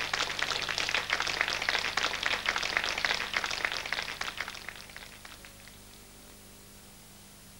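Audience applauding with dense, crackling claps, fading out about five seconds in and leaving a steady tape hiss with a faint low hum.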